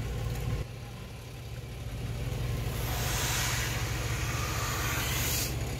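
Car engine idling with a steady low hum as the tyre slowly rolls over and crushes a plastic Halloween toy. From about three seconds in, a hissing crackle of plastic giving way under the tyre lasts a couple of seconds.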